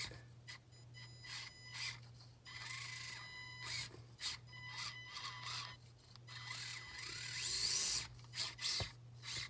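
Axial SCX30 micro rock crawler's brushed motor and gearbox whining in short stop-start bursts of throttle, with some rising revs, plastic scraping and knocks as the truck climbs over another small RC truck. A steady low hum runs underneath.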